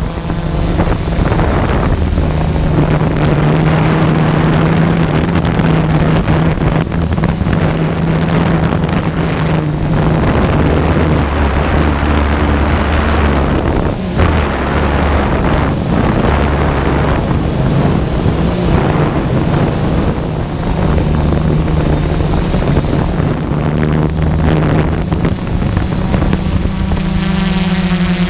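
SimToo Dragonfly camera drone's propellers and motors buzzing steadily, heard close from the drone itself, the pitch stepping up and down as it manoeuvres.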